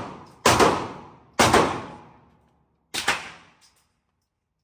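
Firearm shots at a range: three sharp shots, the first two about a second apart and the third after a longer pause, each followed by a ringing echo that dies away. The echo of an earlier shot is still fading at the start.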